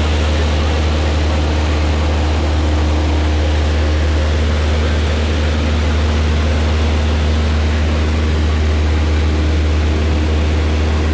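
Engine and propeller of a single-engine light aircraft in cruise, heard inside the cockpit: a loud, steady low drone with a constant hum above it.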